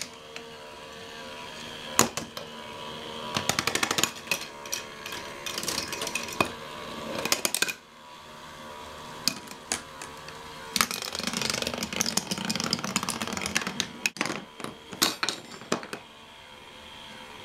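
Small plastic balls rolling and clattering through a marble-run machine: rumbling along wooden dowel rails and track, with many sharp clicks and knocks as they drop onto and trip its parts. The clatter stops about sixteen seconds in, as the last lever switches on an electric kettle.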